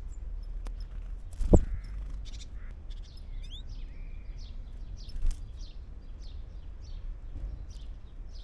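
Small garden birds chirping in short, high calls repeated several times, with a single dull thump about a second and a half in and a lighter knock later.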